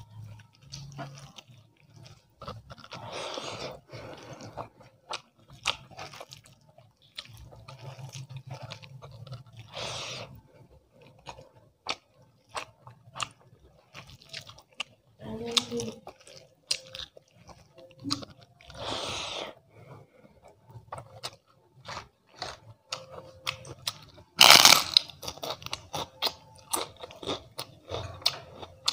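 Close-miked eating by hand: soft squelching as rice and dal are kneaded on the plate, and steady chewing with many small crunchy clicks. About four seconds before the end comes one much louder crunch, a bite into crisp papad.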